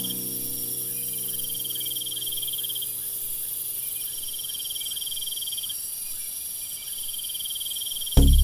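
Cricket chirping: pulsing high trills of about two seconds each, four in a row with short gaps, over a faint steady high tone. A low held chord fades out in the first few seconds, and loud music with a beat cuts in at the very end.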